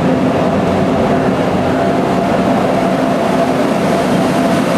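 Indian Railways train running, a steady loud noise of the train and its machinery with no break.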